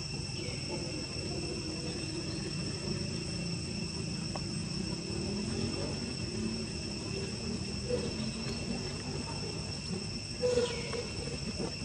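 A steady, high-pitched drone of insects over a low background rumble. About ten and a half seconds in comes one short, louder call that falls in pitch.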